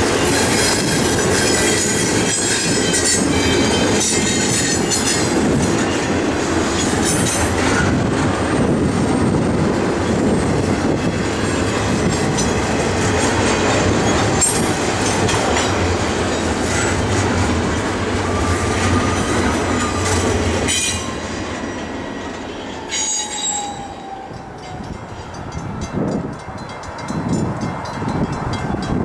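Double-stack intermodal train's well cars rolling past close by: a steady rumble of steel wheels on rail, with high-pitched wheel squeal coming and going. About two-thirds of the way through the noise drops off sharply to a much quieter stretch.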